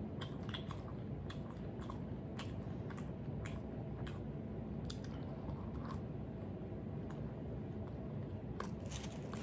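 A person chewing and biting into jianbing and sausage, with many short irregular mouth clicks over a steady low hum.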